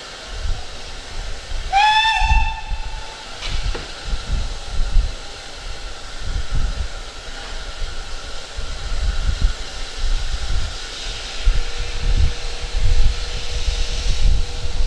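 A steam whistle sounds once, about two seconds in, for about a second and a half, its pitch rising slightly as it opens. A hiss of escaping steam and a low, gusting rumble on the microphone run on throughout.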